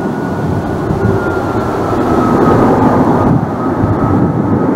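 Airbus A330-243's twin Rolls-Royce Trent 700 turbofans on final approach: a steady jet rumble with a thin high whine that slowly drops in pitch, growing a little louder as the airliner comes closer.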